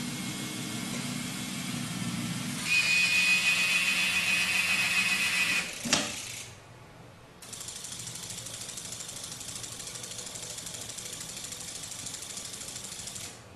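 Small electric motors of a tabletop model factory running as its robot arm moves: a whirring that takes on a high, steady whine about three seconds in. A sharp click comes near six seconds, then a brief lull, then a steady buzzing hum.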